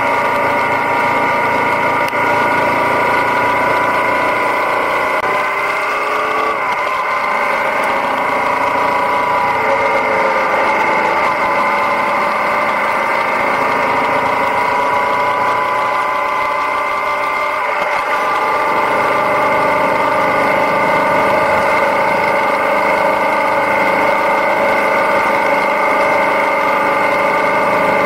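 Yamaha Ténéré 700's parallel-twin engine running under way on the road, a steady engine note whose pitch drops and climbs a few times as the rider changes speed.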